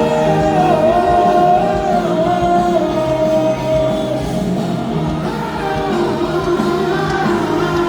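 Pop-rock band music with a singer holding one long, wavering note through the first half, then the band playing on without the voice.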